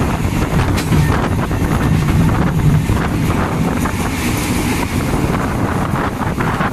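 A passenger train running along the track, a steady low rumble heard from an open window or door, with wind buffeting the microphone.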